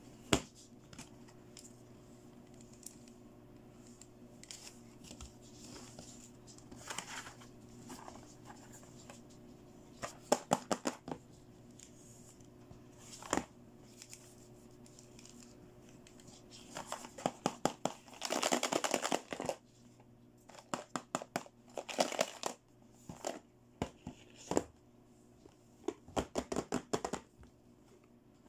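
Hands handling hard plastic toy cases and doll accessories: scattered clicks and taps and short runs of rattling, with a longer rustling, clattering stretch past the middle. A faint steady hum lies underneath.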